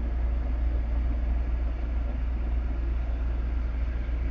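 Volvo semi tractor's diesel engine running steadily, heard from inside the cab as a deep, even low-pitched sound with no revving.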